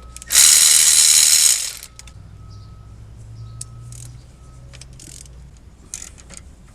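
A ratchet wrench run in one burst of about a second and a half, loosening a bolt on the AC compressor mount, followed by a few light clicks of tool handling.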